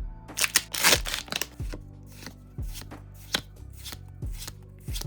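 Pokémon trading cards being handled, with sharp papery slaps and a louder rustle about half a second to a second and a half in. Background music with a steady beat runs under it.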